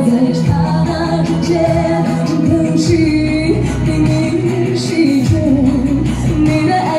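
Amplified Mandarin pop ballad, a backing track with singing, with a steady bass line and beat, in a large hall.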